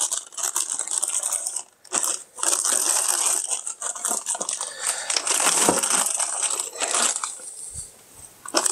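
Clear plastic bag crinkling and rustling as hands work it loose from around a drill press, in bursts with short pauses.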